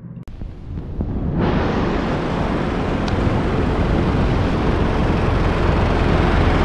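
Four-wheel drive towing a boat trailer across beach sand, its engine running and growing slowly louder as it comes closer, under steady wind noise on the microphone that sets in sharply about a second and a half in.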